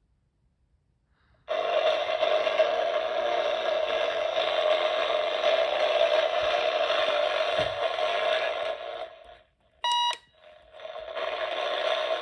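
Alarm of a Craig CR41803 AM/FM clock radio going off suddenly about a second and a half in, a loud steady sound. It fades out around nine seconds, a short beep sounds about ten seconds in, and the alarm sound then comes back.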